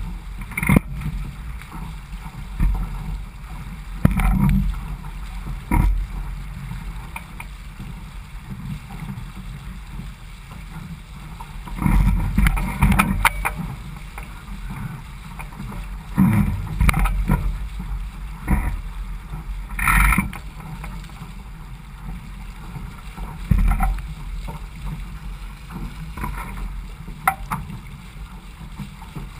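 Laser 4000 sailing dinghy's hull moving through light chop: a steady rush of water along the hull. Every few seconds there is a louder slap and splash as the hull meets a wave.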